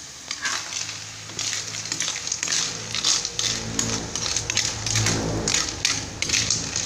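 Snail shells clattering and scraping against a metal wok as they are stirred with a spatula: irregular sharp clicks and rattles over a low steady hum.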